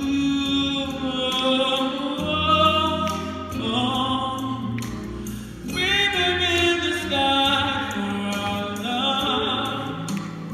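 A solo singer singing into a microphone over a choir, with long wavering held notes and runs through several pitches. The singing dips briefly a little before halfway, then comes back.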